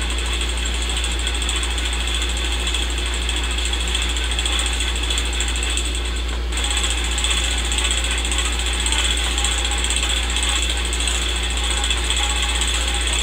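Old film projector sound effect: a projector running steadily, with a low hum and a constant hiss.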